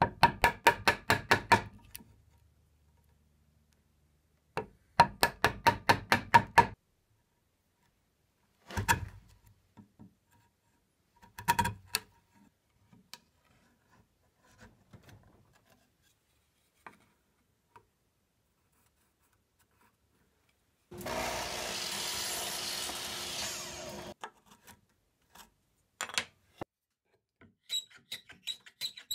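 Hand-tool work on oak: a chisel cleaning out a mortise in two quick runs of sharp taps, followed by a few single knocks. Later comes a steady hiss of about three seconds, and near the end a block plane taking quick short strokes.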